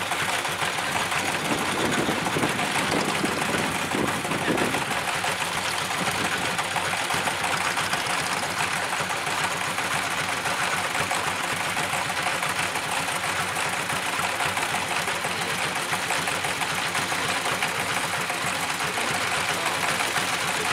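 Two-wheel walking tractor's engine running hard at a steady speed, with a fast, even chugging pulse.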